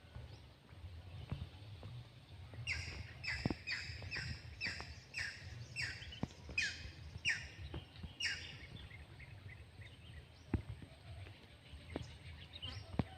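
A bird calling a run of about a dozen repeated, slightly falling notes, about two a second, starting a few seconds in and stopping past the middle. Scattered faint clicks and knocks sound around it.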